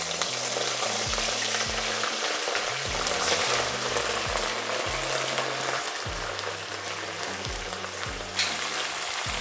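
Chunks of raw beef sizzling hard in very hot oil in an aluminium kazan, a steady dense crackle as the meat sears. Another piece drops into the oil about eight seconds in, giving a brief louder spit. Background music with a low, steady beat plays underneath.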